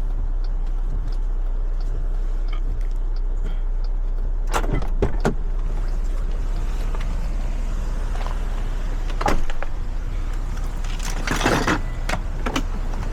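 Car running, heard from inside the cabin: a steady low rumble of engine and road noise, with a few short knocks and clicks about halfway through and again near the end.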